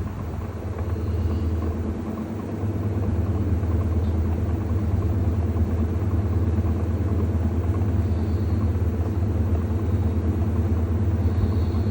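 LG TurboDrum direct-drive top-loader washing machine running with a steady low hum and rumble, growing louder a couple of times in the first few seconds and then holding steady.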